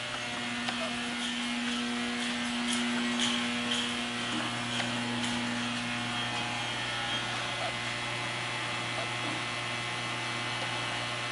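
Steady electrical and machine hum of a BTU industrial furnace running at temperature, with a low mains drone and a higher tone that drops out about six and a half seconds in, plus a few faint ticks.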